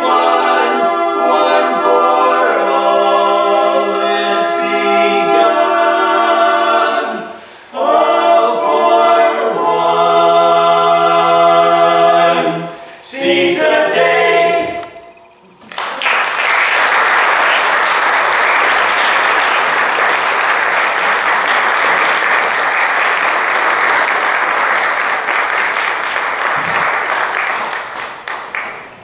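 Male barbershop quartet singing a cappella in close four-part harmony, finishing the song about fifteen seconds in. Audience applause follows and fades near the end.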